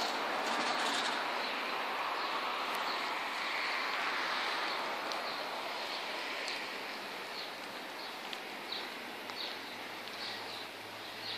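Outdoor street ambience: a steady wash of distant traffic noise, with small birds chirping in short high calls that repeat from about halfway through.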